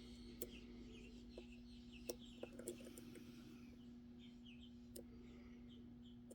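Faint metallic clicks and taps of a lock pick and tension wrench working the pin stacks inside a Magnum Everest padlock, with a few sharper ticks about two seconds in, over a steady low hum.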